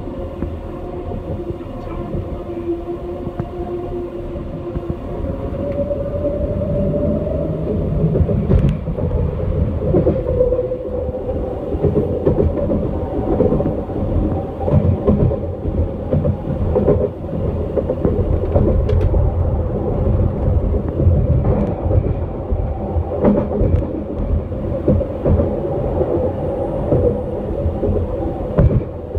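SkyTrain car heard from inside while running on an elevated guideway: its linear induction motor whines over a steady rumble of wheels on rail. The whine rises in pitch about five to seven seconds in, and the running grows louder as the train speeds up. A few sharp clicks come from the running gear.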